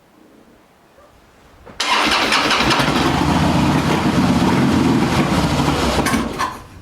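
2011 Harley-Davidson Heritage Softail's V-twin engine is started about two seconds in and runs loudly for about four and a half seconds, then fades out as it dies. The engine will not keep running: the bike's no-start fault.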